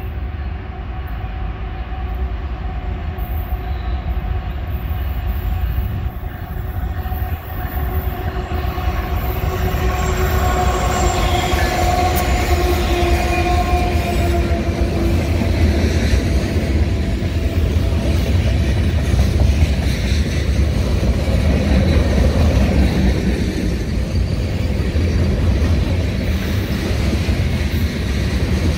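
BNSF freight train passing at track speed. The approaching diesel locomotive carries steady tones that sag slightly in pitch as it goes by. Then a string of loaded covered hopper cars rumbles and clatters past on the rails, growing a little louder.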